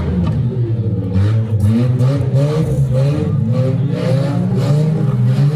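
Several demolition derby cars' engines revving and easing off, their pitches rising and falling and overlapping.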